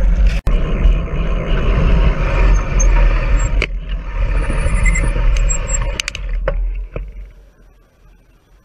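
Wind buffeting a bicycle-mounted camera's microphone, with road noise, while riding. The sound drops out for an instant just after the start. It fades away as the bike slows and stops, with a few sharp clicks along the way.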